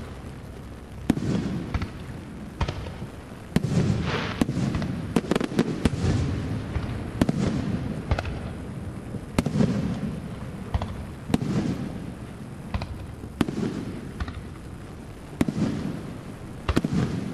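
Aerial fireworks shells bursting one after another: sharp cracks and deep booms every second or two, each boom trailing off before the next.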